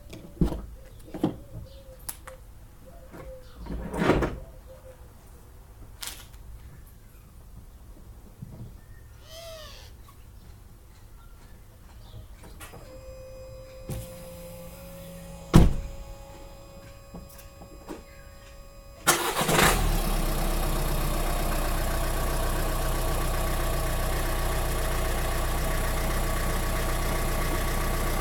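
Clicks and knocks, then a car door shutting with a loud thump. About two-thirds of the way through, a 2018 Dacia Duster 4x4's 1.6-litre four-cylinder petrol engine starts abruptly and settles into a steady idle.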